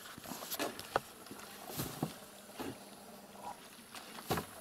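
A swimmer's strokes splashing and sloshing in pond water, in irregular splashes about once a second.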